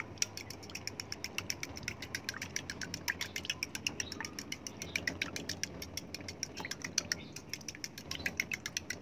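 A utensil beating an egg mixture in a glass, clicking rapidly against the glass about six times a second.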